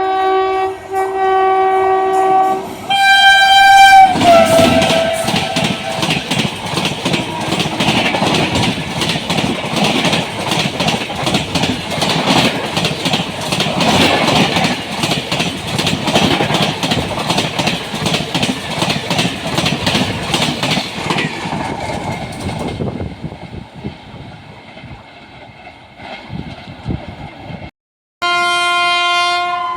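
Express train horn sounding, then a second horn blast that drops in pitch as the train rushes past, followed by the train passing at full speed with rapid wheel clatter over the rail joints, fading away after about twenty seconds. Near the end another train horn starts.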